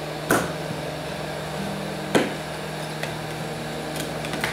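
Steady whir of an electric heat gun running, with two sharp knocks, one just after the start and another about two seconds in, and a few lighter clicks near the end, as a blade is pried into a wooden rib joint glued with heat-softened T88 epoxy.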